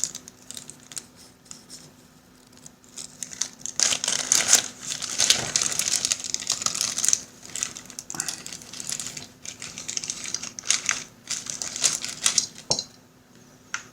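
Packaging being crinkled and rustled by hand in irregular bursts as a miniature model is unwrapped, busiest through the middle and dying away near the end, over a faint steady hum.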